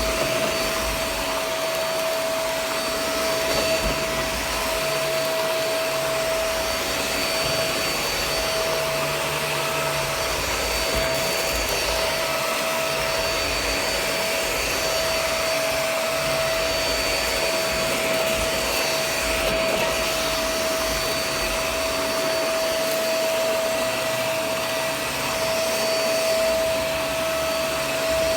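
Shark Vac-or-Steam running in vacuum mode over a rug: a steady motor whine over the rush of suction air, unbroken throughout.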